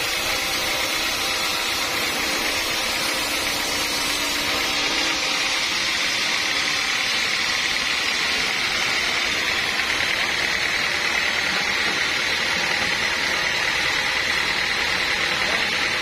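Sawmill sawing a teak log, the machine running steadily through the cut, with a high whine that grows stronger about halfway through.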